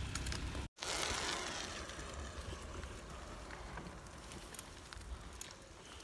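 Steady rushing hiss of wind and movement noise on a phone microphone while moving along a paved path, with faint scattered crackles. The sound drops out completely for a moment just under a second in, then fades slowly.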